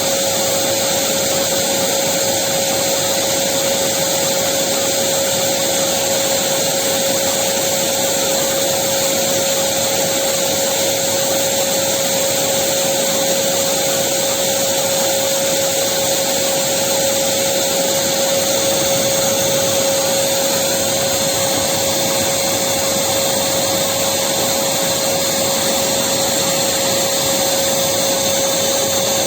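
Electric vacuum cleaner running steadily, a constant whooshing noise with one unwavering whine in it.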